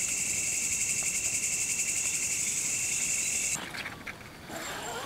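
A dense, steady chorus of crickets trilling in a fast pulse, with a second, lower steady insect tone beneath it, cutting off suddenly about three and a half seconds in. After the cutoff there is faint outdoor background with a few short, high chirps.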